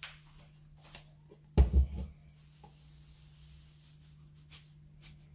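Kitchen handling noises as a salt canister is picked up and brought over a blender jar: a sharp double knock about one and a half seconds in, then faint rubbing and a few small clicks.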